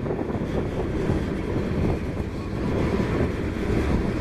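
Freight train of crude oil tank cars rolling past on the rails: a steady low rumble of wheels on track.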